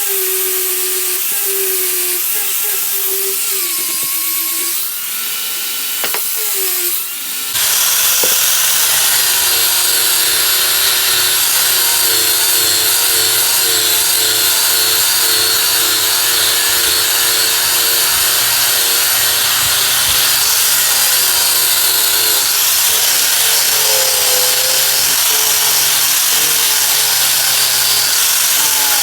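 Power grinder running and grinding down a weld on stainless steel pipe. Its motor whine wavers at first, and about seven and a half seconds in it bites into the metal, turning louder and harsher, and keeps grinding steadily.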